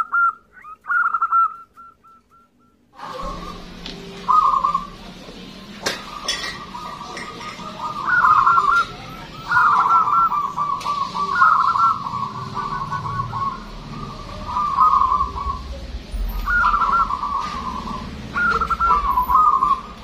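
A zebra dove (perkutut) cooing over and over: bouts of rolling, trilled coos held near one pitch, with short pauses between phrases.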